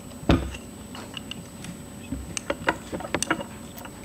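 A single thump about a third of a second in, then a scatter of light clicks and taps: small hard objects such as a mineral sample and testing tools being handled in a tray.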